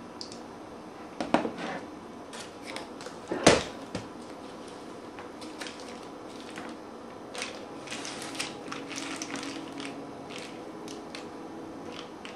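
Foil-faced bubble-wrap insulation crinkling and crackling as it is handled and laid on a wooden countertop. Two knocks come about one and three and a half seconds in, the second the loudest.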